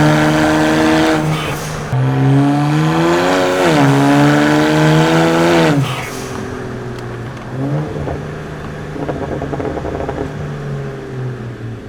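BMW 335i's N54 twin-turbo inline-six, tuned to Stage 2 full bolt-ons, pulling hard under acceleration with its note climbing and breaking twice for upshifts. About six seconds in the throttle closes and the engine drops to a quieter, rougher off-throttle note, with a brief rev near eight seconds.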